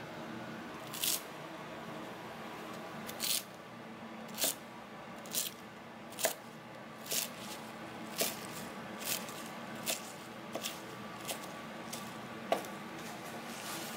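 Chef's knife chopping through a bunch of leafy herb stems on a plastic cutting board: about a dozen separate crisp strikes, roughly one a second, over a steady low hum.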